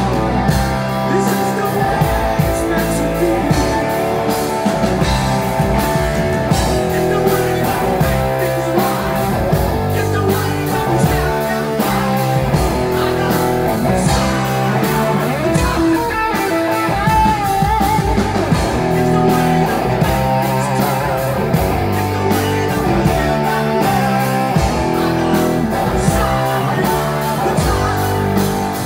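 Hard rock band playing live: electric guitars, bass and drums with a male lead singer. The music is loud and continuous, with a steady drum beat.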